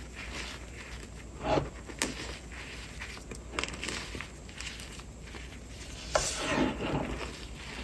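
Hands squeezing and crushing crumbly reformed chalk in a pile of chalk powder: a steady gritty rustle, with louder crunches about one and a half seconds in and again at about six seconds.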